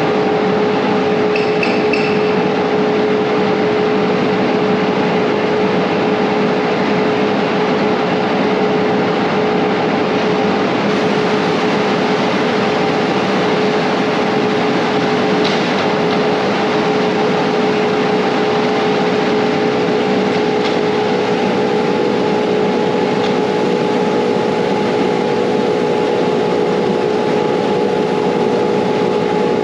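Tractor running steadily under way, a constant engine drone with a steady whine over it and no change in speed.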